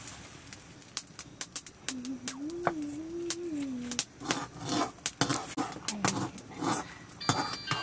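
Metal spoon scraping and knocking against a metal pot while thick maize-flour porridge is stirred: a quick, irregular run of clicks and scrapes. A short wavering hum sounds in the middle, and music begins near the end.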